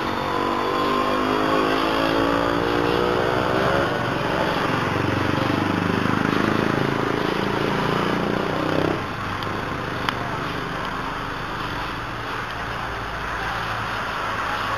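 A motor vehicle's engine rising in pitch as it accelerates, then a second engine sound that cuts off abruptly about nine seconds in, leaving a steady low hum. A single sharp click comes about a second later.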